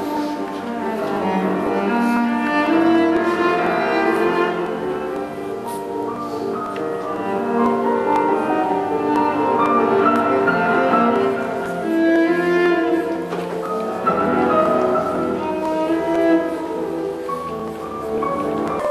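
Background instrumental music: held notes on bowed strings with piano.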